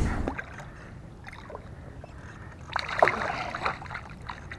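Light knocks and clicks of handling aboard a fishing boat, bunched about three seconds in, over a low steady rumble.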